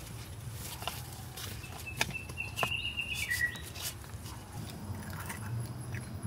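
Metal knife and fork clicking and scraping against a stone slab as grilled kebab pieces are pushed off a skewer, with a few sharp clicks and a brief high squeak near the middle that steps down in pitch.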